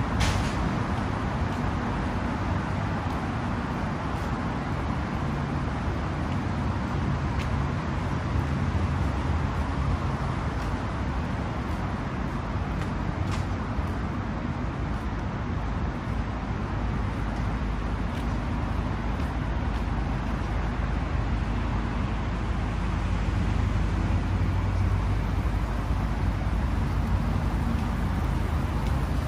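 Steady city street traffic: a continuous low rumble of car engines and tyres, with a few faint ticks.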